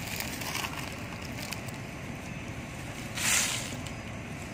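Dry leaf litter rustling briefly about three seconds in, over a steady low background rumble with a few faint ticks.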